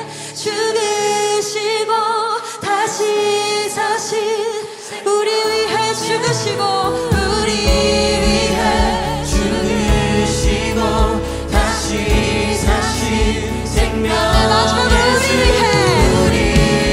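Live contemporary worship song: a female lead singer sings a Korean lyric with the choir, over keyboards and a band. The bass and a steady kick drum come in about seven seconds in.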